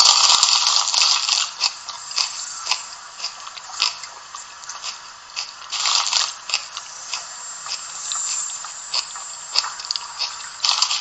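Small loudspeaker of a Märklin H0 model's sound decoder playing a stretch of crunching and scraping noise with irregular sharp clicks, a recorded work-site sound.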